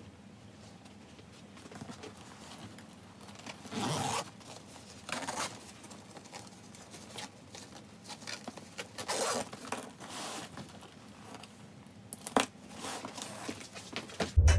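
Short scratchy rasps and rustles from a soft fabric pet carrier, a handful of bursts a second or more apart, with a sharp click near the end.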